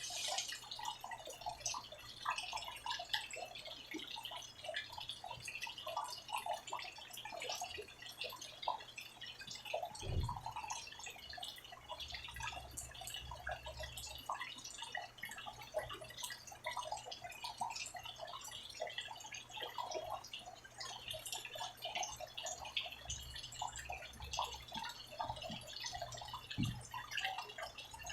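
Rain falling, with a dense, irregular patter of drops striking nearby surfaces. A dull thump sounds about ten seconds in and again near the end.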